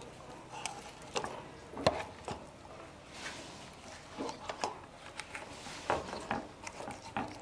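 A knife filleting a large trevally on a wooden cutting board: soft scraping with irregular small clicks and taps as the blade works along the bones and touches the board, the sharpest about two seconds and again about six seconds in.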